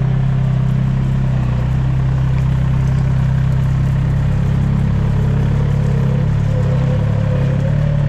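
Compact loader's diesel engine running at a steady speed, heard from inside the cab, as a constant low drone.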